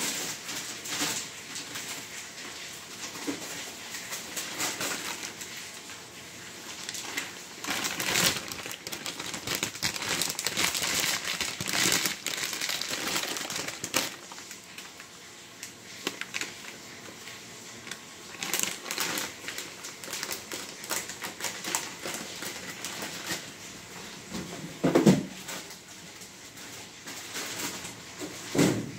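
Plastic packaging crinkling and rustling with many small clicks and knocks as kitchen packets and items are rummaged through in search of wheat flour. Two louder dull knocks come near the end.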